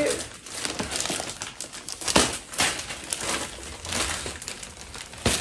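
Plastic mailer bag crinkling in short irregular crackles as a cardboard box is pulled out of it.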